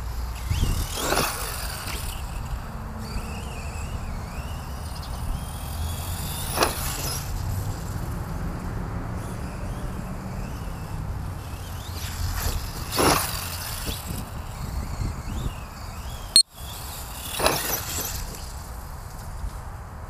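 ZD Racing DBX-10 1/10-scale electric RC buggy driving about on grass, its motor whine rising and falling with the throttle and swelling briefly four times as it passes close by. A single sharp knock comes about three quarters of the way through.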